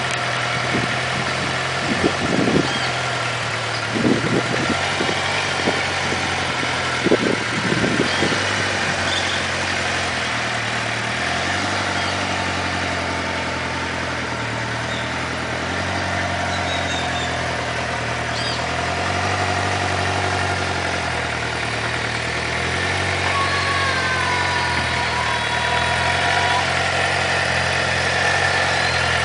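2008 Suzuki GSX-R600's inline-four engine idling steadily, with a few short thumps during the first several seconds.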